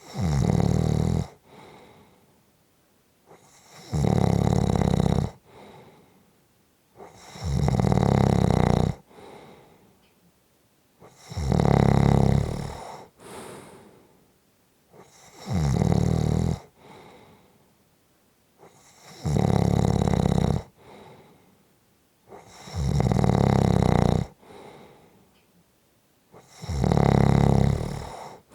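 A person snoring in a slow, even rhythm: eight loud, rattling snores about four seconds apart, each followed by a softer breath.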